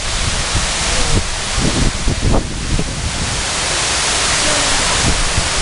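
Water pouring down the ribbed, curved wall of a large fountain waterwall, a steady loud rush of falling water splashing into the basin. A few low thumps on the microphone come between about one and three seconds in.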